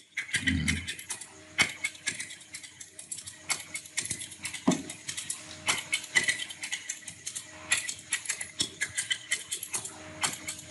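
Typewriter sound effect played back: typewriter keys clacking in a rapid, uneven run, with some strikes louder than others.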